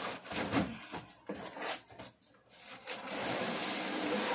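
Cardboard box flaps being pulled open and scraping against each other, with rustling as the plastic-wrapped table fan inside is handled. The noise comes in irregular bursts, with a short pause midway and steadier rustling near the end.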